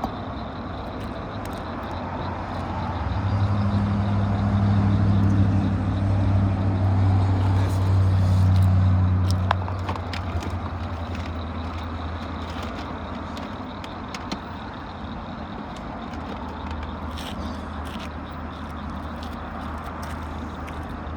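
A motor vehicle's engine hum grows louder from about three seconds in and fades away by about ten seconds, as a vehicle passing by would. A quieter low hum carries on after it, with a few faint ticks.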